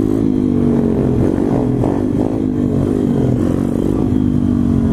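SSR 140cc pit bike's small four-stroke single-cylinder engine running under way, its pitch wavering up and down a little with the throttle.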